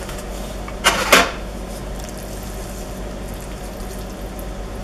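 A wooden spoon knocking and scraping chicken filling out of a frying pan into a metal baking tray: two sharp knocks about a second in, then a steady low hum.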